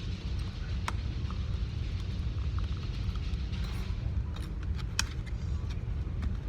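Steady low rumble with scattered light clicks and ticks, two sharper clicks about a second in and about five seconds in.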